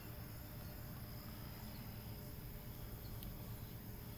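Crickets and other night insects trilling steadily, over a low steady hum, with one faint click about three seconds in.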